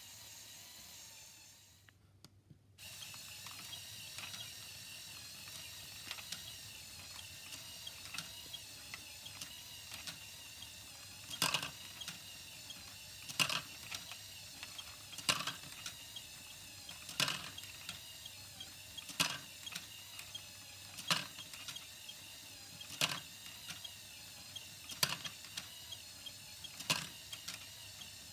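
Motor-driven LEGO Technic gear mechanism running with a steady high whir, starting about three seconds in. From about halfway, a sharp clack comes regularly about every two seconds.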